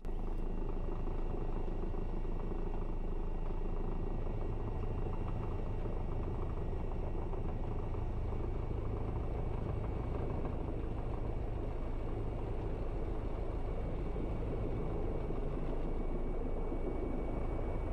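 Airbus EC135 twin-engine helicopter heard from inside the cockpit on its landing approach: steady rotor and turbine noise with a low rumble and faint high steady tones above it.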